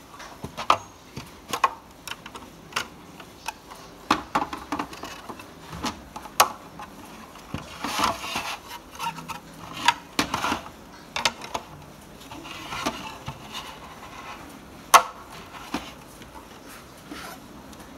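White plastic side panels of an IKEA BYGGLEK LEGO storage box being handled and slotted into their corner slots: a string of sharp clicks and knocks with a few short scraping rubs, the loudest snap coming about three-quarters of the way through.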